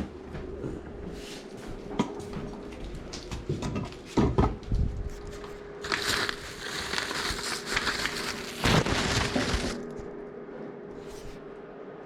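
Crinkling, crackling and knocking of things being handled and opened, with a denser stretch of crackling in the middle, over a faint steady hum.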